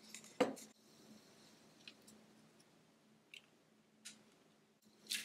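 A few small clicks and taps from small plastic pots and tools being handled. There is one sharp click about half a second in and fainter ticks later, over a faint steady low hum.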